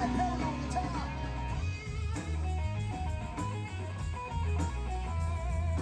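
Rock band playing an instrumental passage: electric guitar with bent notes in the first second, over a stepping bass line and steady cymbal beats, with no singing.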